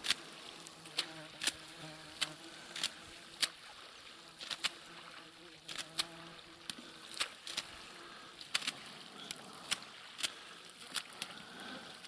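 An insect buzzing close by, on and off, over a run of sharp, irregular clicks about twice a second.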